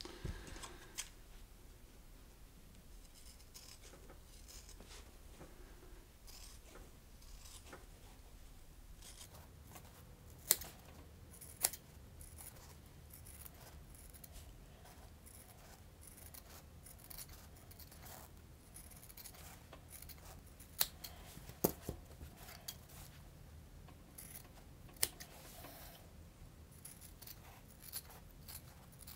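Scissors cutting through sheet foam: a quiet, irregular run of snips with a few sharper clicks of the blades closing.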